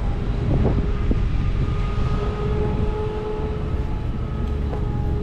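Steady low outdoor rumble, like distant traffic, with a faint steady hum over it and a few light clicks about half a second in.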